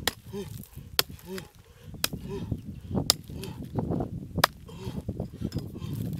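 Hatchet blade chopping into hard, dry cracked mud, with sharp strikes about once a second. Short low calls sound between the strikes.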